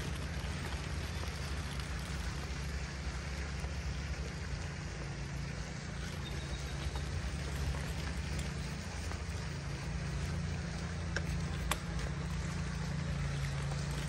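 Steady outdoor background noise with a low, even hum underneath, like distant engines, and a few faint ticks.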